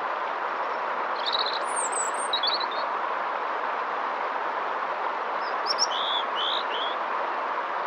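Steady rushing of river water with songbirds chirping over it: a few quick chirps and a high whistle in the first three seconds, then another group of chirps about six seconds in.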